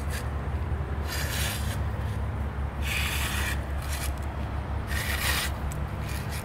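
Three rasping scrapes, each under a second, as steel rebar stakes are jammed down into wet concrete in a post hole, with a steady low hum underneath.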